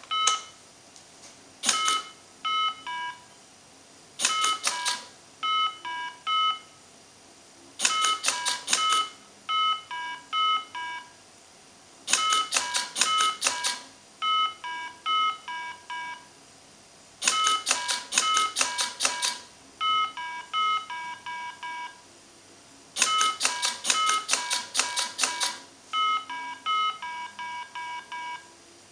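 Mini Simon game sounding its electronic tones, short beeps at a few different pitches played one after another in sequences that grow longer each round. Between the sequences come bursts of rapid clicking, also lengthening each round, with more tones mixed in: the robot pressing the buttons as the game goes on.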